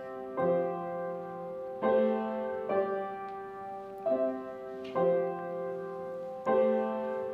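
Piano playing the introduction to a song: a slow series of chords, each struck and left to ring, about one every second or so.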